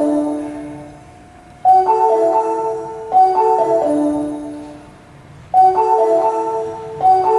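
Train station platform chime melody over the public-address speakers: a short bell-like phrase of stepping-down notes, struck again about four times, each ringing out and fading between repeats.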